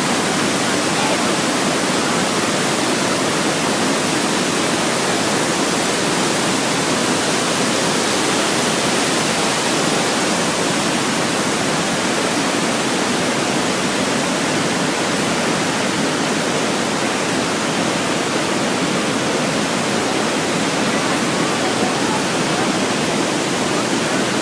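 Iguazu Falls: a large waterfall's water pouring and crashing, a loud, steady rush that does not change.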